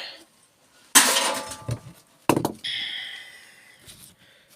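Discarded microwave parts tossed onto a scrap pile: two clattering hard impacts about a second apart. After the second, a metallic ringing tone fades out over about a second and a half.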